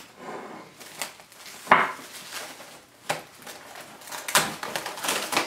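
Plastic cling wrap crinkling and rustling as it is pulled off the roll and pressed around a bowl, with irregular clicks of handling and one sharp knock a little under two seconds in.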